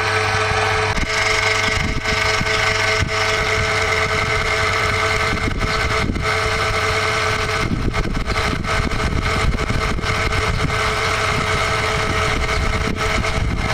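Europea Tiratutto 125 electric hoist motor running steadily, winding the new 3 mm steel cable onto its drum; a constant hum with a steady whine.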